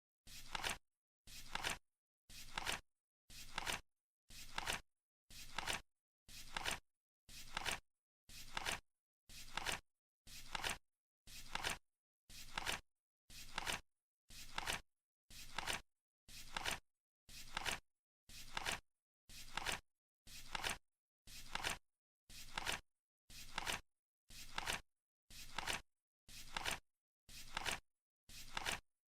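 Flip clock's digit flaps turning over once a second, each flip a short rasp ending in a sharper clack, in a steady unbroken rhythm.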